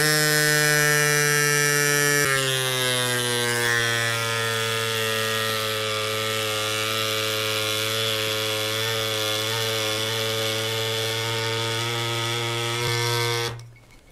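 Cycplus AS2 mini electric bike pump running while inflating a flat road bike tire: a steady motor buzz with a slight drop in pitch about two seconds in, cutting off abruptly near the end.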